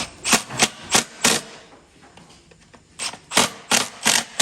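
Impact driver with a Phillips bit running screws into an office chair's seat plate: two groups of short bursts, about three a second, one group for each screw, with a pause between.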